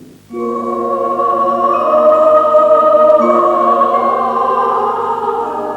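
Choral music: voices singing a long held chord, entering about a third of a second in, with the harmony shifting slightly about three seconds in.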